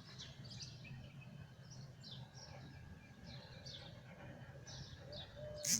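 Small birds chirping repeatedly, short falling chirps coming every half second or so, over a steady low background rumble. A louder, sharper call comes right at the end.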